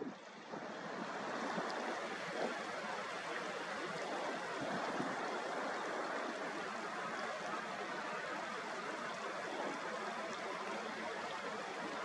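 Steady rush of flowing river water, an even hiss with no break.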